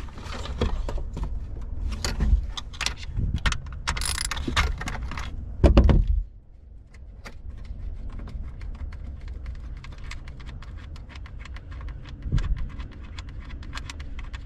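Hand tools and metal fittings clicking, clanking and knocking as cable connections to a car's battery distribution box are undone. There are heavier knocks in the first six seconds, then a quieter run of light, quick metallic clicks.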